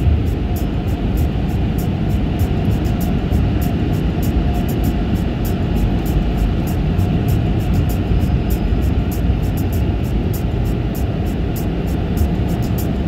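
Car wash machinery running, heard from inside the car: a steady, loud rumble and hiss, with a fast, faint high ticking over it.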